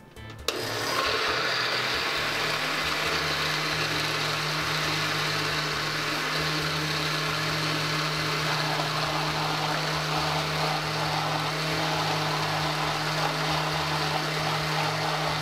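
Oster countertop blender switched on with a click about half a second in, then running steadily with a constant motor hum as it blends a milk-and-walnut mixture.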